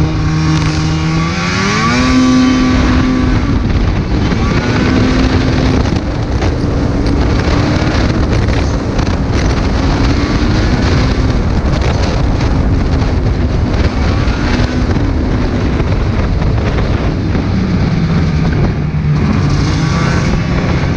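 Snowmobile engine revving up hard about two seconds in, then running at speed with its pitch wavering up and down over loud track and wind noise. It eases to a lower, steady note near the end.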